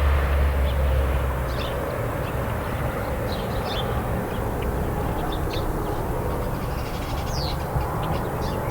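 Farm ambience with traffic: a vehicle's low rumble fades away in the first second or so, leaving a steady background of distant traffic noise with small birds chirping repeatedly over it.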